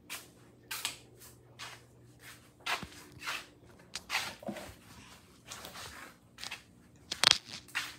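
A string of short, irregular rustles and crunches, the sharpest about seven seconds in.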